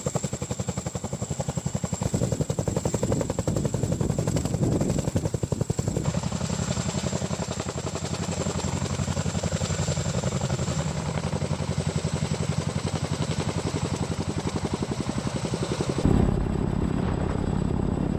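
CH-47 Chinook tandem-rotor helicopter with two Lycoming T55 turboshaft engines in a low hover: a fast, even beat of rotor blades over engine noise, with a thin steady high whine. The sound changes abruptly about six seconds in and again near the end.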